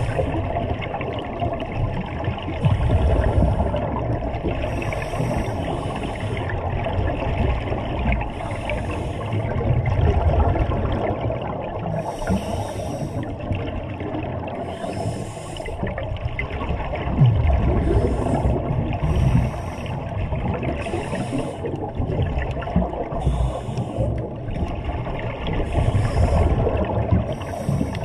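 Scuba breathing heard underwater: a short hiss from the regulator every one to three seconds and the low gurgling rumble of exhaled bubbles, as two divers share one regulator.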